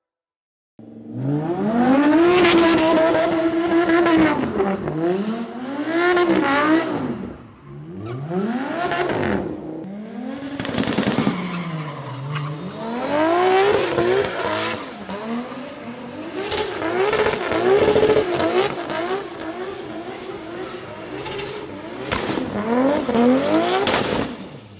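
Sports car engine revving hard, its pitch climbing and falling again and again, while the tyres squeal as the car spins its wheels in a smoky burnout. The sound starts suddenly about a second in, and there are several quick rising revs near the end.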